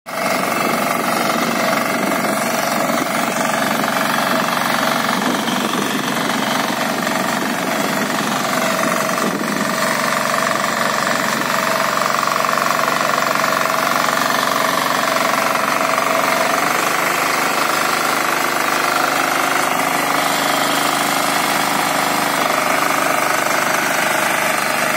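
Kirloskar power weeder's 8 hp diesel engine running steadily under load while its rotary tines churn through soil.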